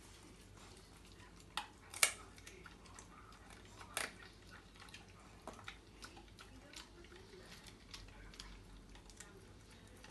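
Rottweiler puppy chewing raw chicken bone from a person's hand: a series of sharp cracks and crunches, the loudest about two seconds in and another about four seconds in, between smaller chewing clicks.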